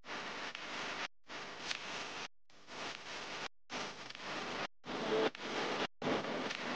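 Hot oil sizzling as aloo samosas deep-fry in a pan: a steady hiss, broken by short gaps of silence about once a second.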